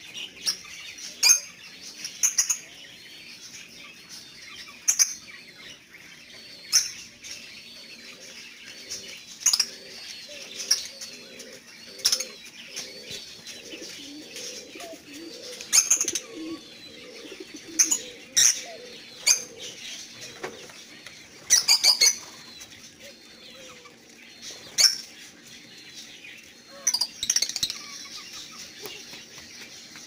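A flock of lovebirds (Fischer's and black-masked) chattering: steady high twittering, broken every second or two by loud, shrill, very short calls.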